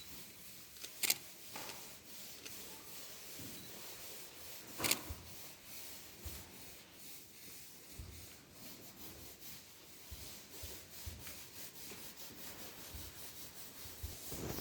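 Repeated brushing and rubbing strokes over a wooden printing block, a dry scratchy swishing as the dry block is wetted and worked with ink. There are two sharp clicks, about a second in and about five seconds in.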